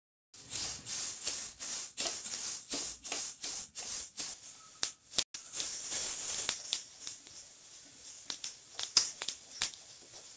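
Sesame seeds dry-roasting in a steel kadhai while a wooden spatula stirs them: a dry swishing rattle of seeds scraped around the pan, with light crackling as the seeds begin to pop in the heat. The stirring strokes come thick in the first half and thin out toward the end.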